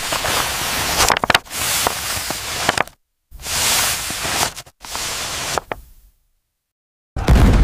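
A loud hiss with scattered crackles and clicks, which breaks off abruptly several times and falls silent for about a second. Near the end a deep cannon boom sets in suddenly.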